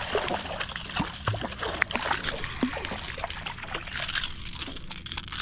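Water splashing and trickling in small irregular splashes as a small redfish is brought in beside a kayak.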